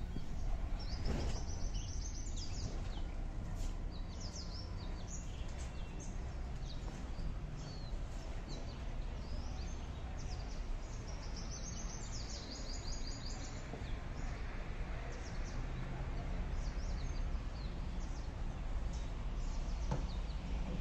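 Birds chirping in short runs of high, falling notes over a steady low background noise. The chirps are thickest in the first few seconds and again around the middle.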